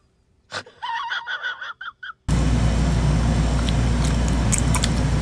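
A man's brief breathy chuckle in a few short pulses, cut off suddenly about two seconds in. Then a steady low rumble and hiss of room noise with a few faint clicks.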